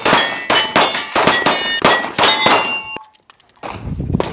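A rapid string of gunshots, about three to four a second, each hit leaving steel target plates clanging and ringing. The string breaks off briefly near the end, then picks up again.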